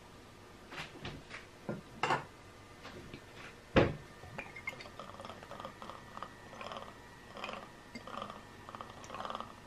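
A few light clicks and one sharp knock as the stainless steel frying pan and burner are handled, then vegetable oil poured from a bottle into the empty pan, running in uneven pulses from about five seconds in.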